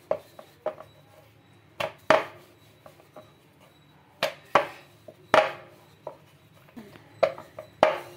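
Wooden rolling pin knocking and clattering on a round wooden rolling board as dough is rolled out. The knocks come irregularly, several in quick pairs, and the loudest fall about two seconds in, at five and a half seconds, and near the end.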